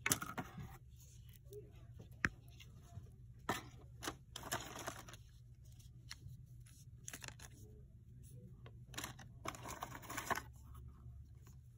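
Intermittent rustling and handling noise in three bursts, with a few sharp clicks, over a low steady hum.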